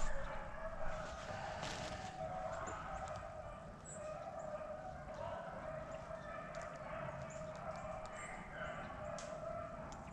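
A pack of beagles baying in the distance, several voices overlapping in one continuous wavering chorus: the hounds running a rabbit's track.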